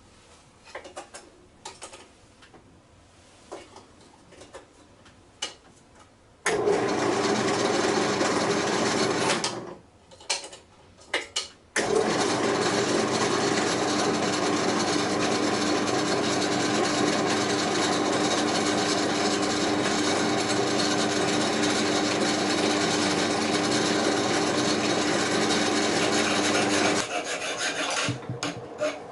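Light taps and clicks, then a motor-driven power tool running steadily with a constant hum while it works material: a short spell of about three seconds, then a longer run of about fifteen seconds, with quieter scraping near the end.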